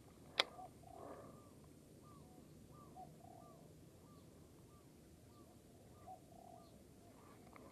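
A sharp click about half a second in, then faint repeated short animal calls, about one and a half a second, each a brief rising-then-falling note.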